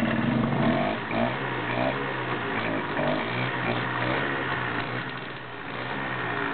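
Peugeot TSM moped's small single-cylinder two-stroke engine running after a pedal start, its revs rising and falling unevenly, loudest in the first second and settling lower after about five seconds.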